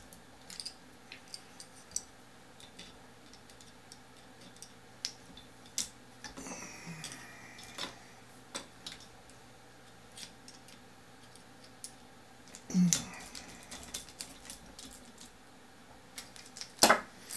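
Hex screwdriver and small metal parts of a camera gimbal mount clicking and tapping as screws are turned by hand, in scattered light clicks, with a louder knock near the end.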